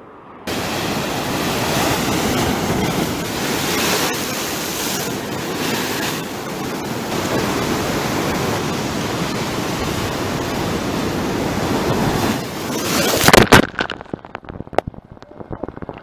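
Ocean surf crashing and washing over shoreline rocks: a steady roar of whitewater that starts suddenly about half a second in. A loud splash comes near the end, after which it drops to a faint hiss with scattered small ticks.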